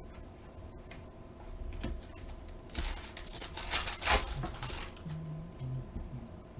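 Trading cards being handled and flicked through, with a burst of rapid flicking and rustling from about three seconds in that lasts nearly two seconds.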